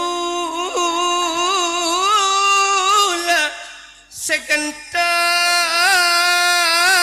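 Music: a single amplified melodic line of long held notes with slides and wavering ornaments, breaking off briefly about halfway through before another long held note.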